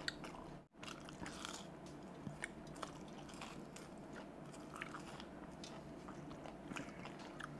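Faint eating sounds of a person chewing and biting into a dahi kachori, a fried kachori shell filled with curd and chutney, with scattered soft crunches and small mouth clicks.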